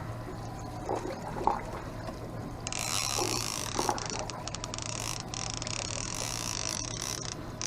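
Fishing reel being cranked to bring in a hooked salmon, its gears giving a rapid ratcheting whir that starts about two and a half seconds in.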